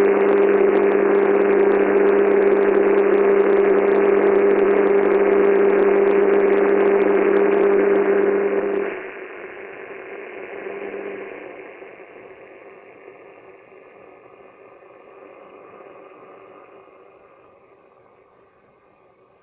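Shortwave radio receiver hissing with static and a steady low hum, the broadcast's programme over. About nine seconds in the noise and hum drop away sharply, as the transmitter's signal goes off the air, leaving fainter static that slowly fades.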